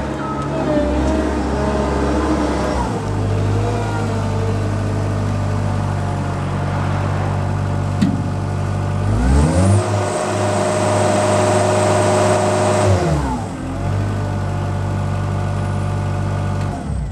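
Caterpillar 226B skid steer loader's new diesel engine running steadily, revved up once to high speed for about three seconds around the middle and then let back down to idle. A single sharp click comes just before the rev.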